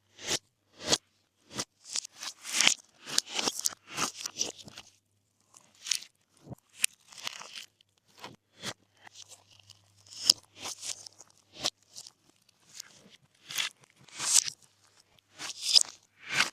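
Glossy slime being mixed, giving irregular sticky pops and crackles, some single and some in quick runs.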